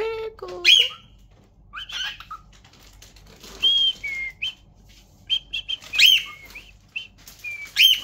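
Lutino cockatiel whistling: a string of short whistled notes and chirps, some gliding up and some dropping in pitch, with brief pauses between them.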